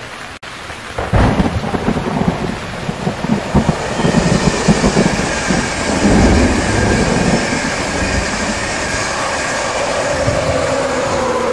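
Heavy rain and rolling thunder, with a sudden loud clap about a second in and low rumbling after it. The rain grows denser from about four seconds in, with the rumble of a passing train mixed underneath.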